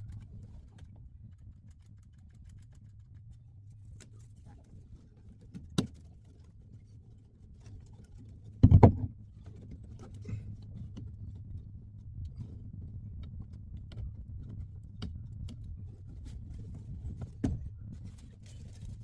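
Scattered light knocks and clicks of hands handling material, with one louder thump about nine seconds in, over a low steady hum.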